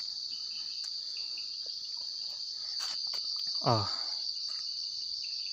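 Crickets trilling in a steady, high-pitched chorus. About two-thirds of the way through, a person's voice makes one short sound that falls in pitch.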